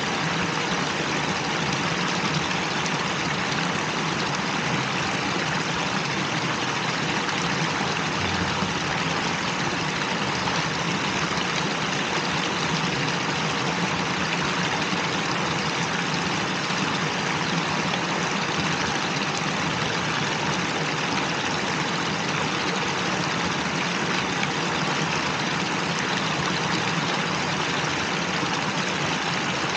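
Steady splashing and rushing of water from a plaza fountain, water falling from spouts in a tiered stone wall into a pool, with a faint steady hum underneath.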